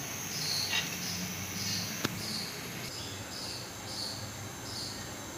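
Insect chirping in the background, short high chirps repeating steadily about every half second, with a single sharp click about two seconds in.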